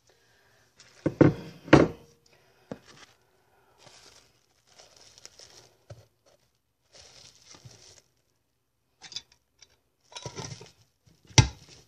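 Plastic cling wrap crinkling as it is stretched and pressed over the mouth of a glass mason jar, with two sharp knocks about a second in and more knocks near the end as the metal lid goes on over the wrap.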